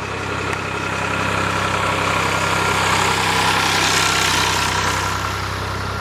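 Massey Ferguson 231 tractor's three-cylinder diesel engine running as the tractor drives up, growing louder to a peak about three to four seconds in, then easing slightly.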